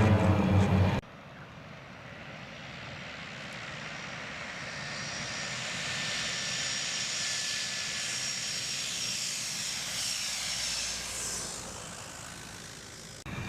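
Air Tractor AT-502 crop duster's turboprop engine running loud and close for about a second. After an abrupt cut, the plane passes by: a rushing sound with a faint high whine builds for several seconds, then drops in pitch and fades away as it goes past.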